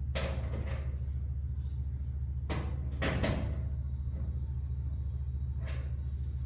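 Knocks and rattles from work on a garage door: a sharp knock near the start, a cluster of clatter about halfway through, and another knock near the end, over a steady low hum.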